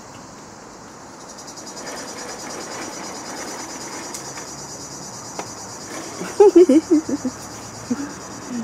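Crickets chirping in a fast, even trill that swells after about a second. About six seconds in, several short, louder sounds with a wavering pitch cut across it.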